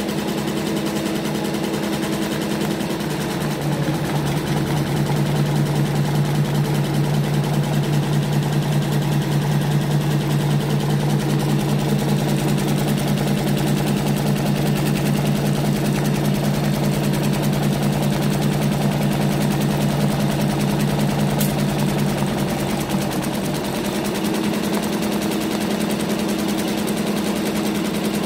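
CNY two-head, 12-needle computerized embroidery machine stitching on a cap in its cap frame: a fast, steady mechanical clatter over a hum. It gets louder and deeper in pitch from about four seconds in, then goes back to the earlier sound about five seconds before the end.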